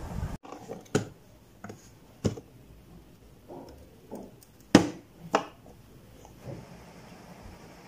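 Handling of a steel drill bit in a hard plastic tool case: a few light taps and clicks, then two louder sharp clicks close together about halfway through.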